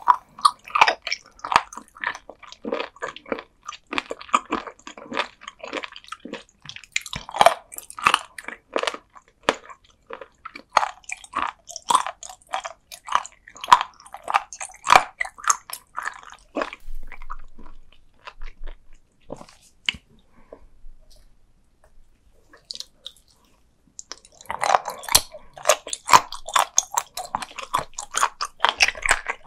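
Close-miked chewing of raw sea cucumber: rapid crunches and wet clicks as the firm, chewy flesh is bitten down. Past the middle the chewing dies down to a few faint clicks for several seconds, then starts again with loud crunching near the end.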